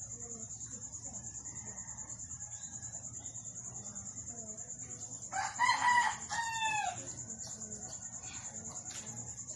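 A rooster crowing once, loudly, about halfway through: a call of several syllables that rises and falls. Under it runs a steady, high-pitched pulsing tone, about six pulses a second.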